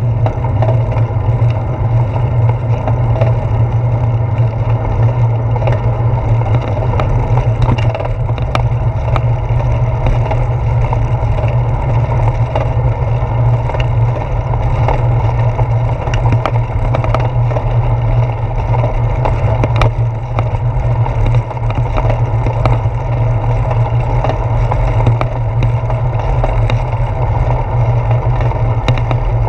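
Ride noise picked up by a handlebar-mounted GoPro on a moving bicycle: a steady low rumble of wind and road vibration, with frequent small clicks and rattles.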